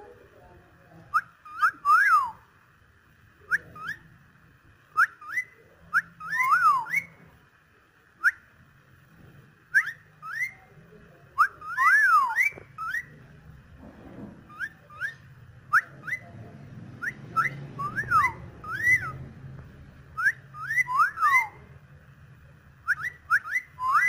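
Cockatiel whistling: short, clear whistled notes that sweep up or down, often in quick runs of two or three, repeated every second or two.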